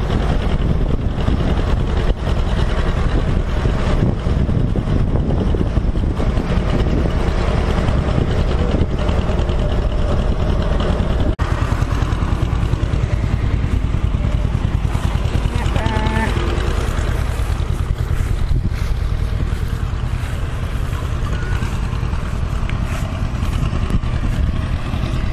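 Farm tractor engines running close by, a steady low rumble.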